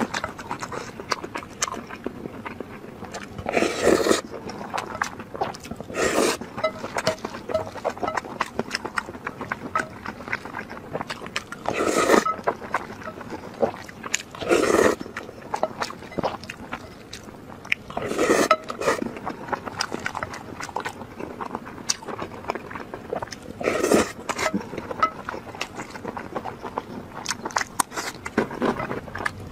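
Close-miked eating of spicy noodles and meat: steady wet chewing and smacking, with a louder slurp about six times.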